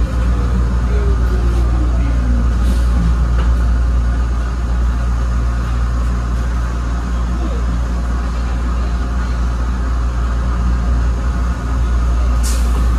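An ABB N5 rail car of the Norristown High-Speed Line running along the track with a steady low rumble. A motor whine falls in pitch over the first couple of seconds, and a few sharp clicks come through, the last near the end.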